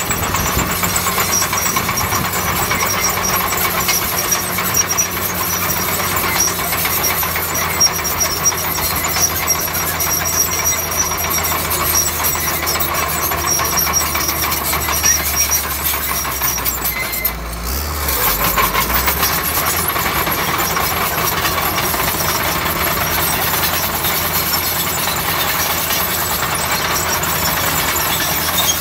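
Shantui bulldozer's diesel engine running steadily as it works, its note shifting briefly about two-thirds of the way through.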